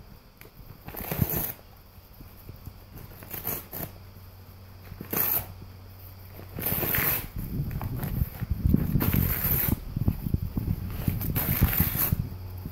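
Brown paper bag being torn and shredded by a golden retriever: short sharp rips of paper every second or two, with crinkling and crumpling between them. The rustling and tearing get denser and fuller in the second half as the dog tugs and paws at the bag.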